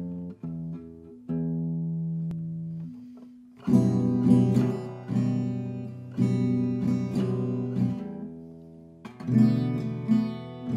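Guitar music: a few softer held notes at first, then loud strummed chords from about four seconds in.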